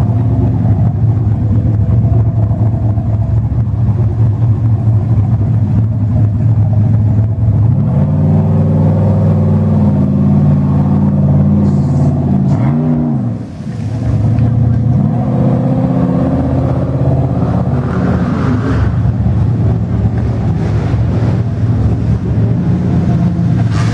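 Rock-bouncer buggy's engine running hard and revving as it climbs a steep rocky hill. The revs rise and surge about a third of the way in, drop off for a moment a little past the middle, then climb again.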